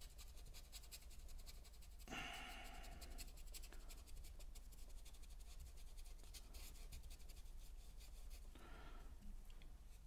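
Faint scratchy strokes of a paintbrush scrubbing acrylic paint over a canvas.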